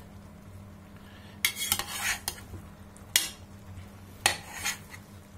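Metal ladle scraping and clinking against the sides of a stainless steel pressure-cooker pot while stirring pork and leeks. There are several short scrapes and knocks, the first about a second and a half in, over a steady low hum.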